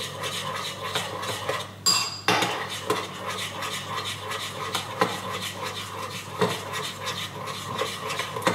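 A spoon stirring porridge oats soaked in just-poured boiling water, scraping round its container with repeated clinks against the sides, broken off briefly about two seconds in.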